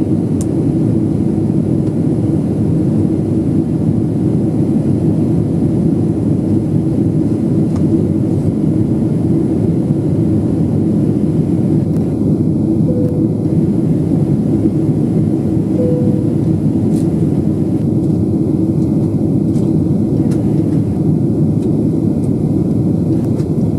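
Steady roar of engines and rushing air heard inside the cabin of a Boeing 777-300 climbing after takeoff, with a steady low hum running under it.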